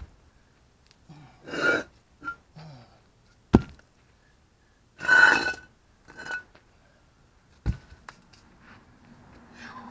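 Concrete blocks pulled out from under a jacked-up car and dropped onto pavement: two sharp thuds, about three and a half and about seven and a half seconds in. Two short, rough rasping noises come between them.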